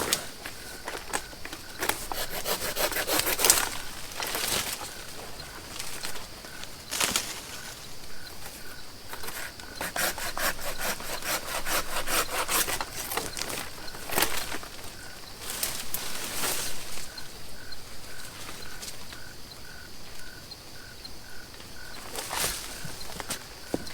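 Hand saw cutting through tree limbs in runs of quick back-and-forth strokes, with a few single sharp strokes or snaps of wood in between, while fallen branches are trimmed back.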